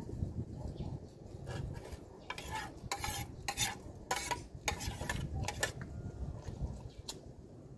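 Metal spoon scraping and clinking against a plate as rice is scooped up, a quick irregular run of short scrapes and clicks for several seconds.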